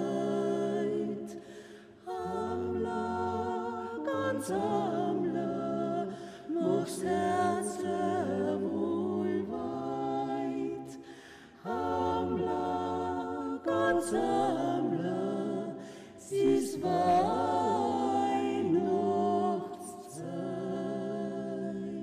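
Vocal group singing a Carinthian Christmas song a cappella in several-part harmony, in slow phrases of held chords with short breaks between them. The last chord ends near the end.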